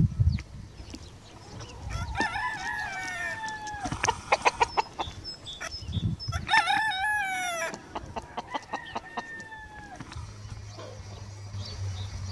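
Pavlovskaya roosters crowing twice, about two seconds in and again just past the middle, each crow ending in a falling, drawn-out note, with quick clucking after each one. A low steady hum comes in near the end.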